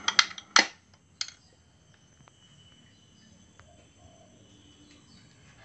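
Three sharp knocks from handling parts during engine assembly, two close together just after the start and a third about a second in. After that, only faint background with a few small ticks.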